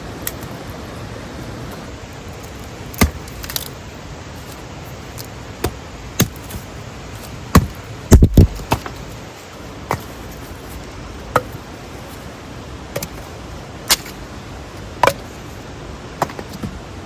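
Irregular sharp clicks and knocks of hard objects being handled, with a quick cluster of louder knocks about eight seconds in, over the steady rush of a mountain stream.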